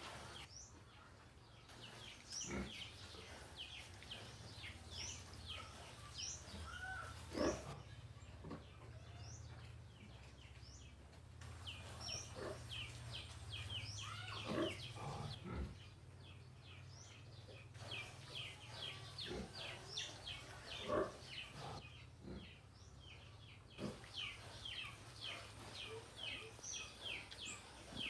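Piglets eating, with a few short, sharp grunts and mouth sounds, over continuous rapid chirping of small birds.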